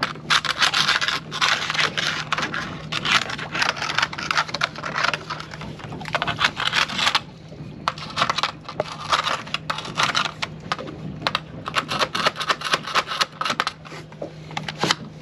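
Barnacles being scraped off with the end of a landing-net handle: repeated bursts of gritty scraping and crackling, with a few short pauses.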